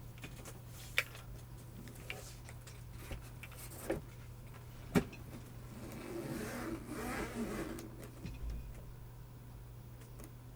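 Single keystrokes on a GEONWORKS Frog TKL mechanical keyboard with linear switches (Cherry MX Black housings with Kailh Cream stems), a few sharp clacks about a second apart, the loudest about five seconds in, followed by a couple of seconds of softer, jumbled clatter.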